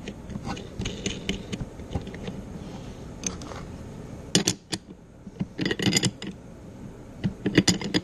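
Small metallic clicks, clinks and scrapes of hand tools as the nut is threaded back onto a key machine brush motor's arbor and tightened down, with locking pliers holding the shaft and a wrench on the nut. The clicks come in clusters, most of them past the middle and near the end.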